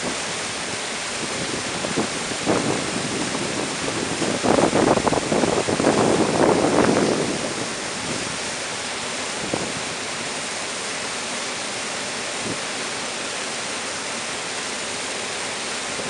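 Water rushing steadily over a river dam's spillway and churning in the pool below, swelling louder for a few seconds around the middle.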